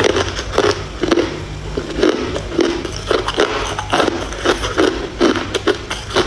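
Thin sheet of ice being bitten and chewed, a quick run of crisp crunches, about two or three a second, as it cracks between the teeth.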